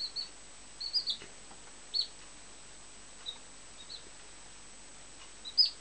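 A chick peeping: short, high cheeps in a few scattered groups, some dipping in pitch, the loudest one near the end.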